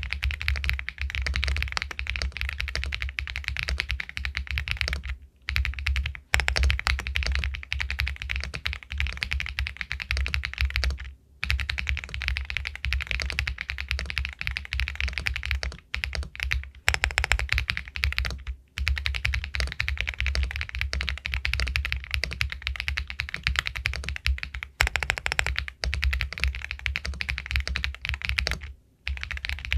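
Continuous fast typing on an Epomaker Galaxy 80 Pro aluminium mechanical keyboard with White Jade linear switches, dense key clacks with a few brief pauses.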